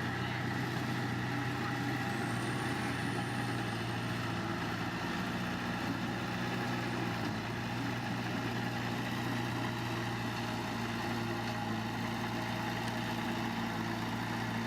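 Diesel engine of a heavy construction machine running steadily at a constant speed.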